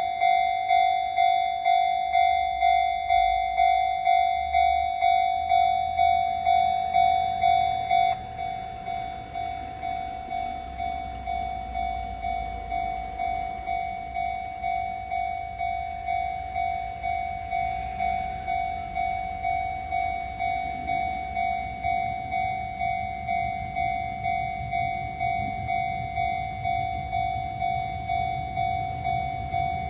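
Japanese level-crossing warning bell ringing its electronic clang about one and a half times a second; it abruptly becomes quieter about eight seconds in. A train's low rumble builds under it in the second half as the train approaches.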